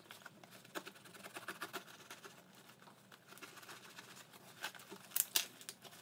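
Box cutter scoring the packing tape on a small cardboard box, then the box being pulled open by hand: faint scratching and light taps, with a few louder rips and rustles about five seconds in.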